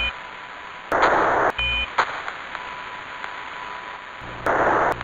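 Two-way radio transmission noise in the style of a space-mission voice link: two loud bursts of static hiss, about a second in and near the end, with short beeps at the start and about 1.7 s in, over a low hiss and a faint steady tone.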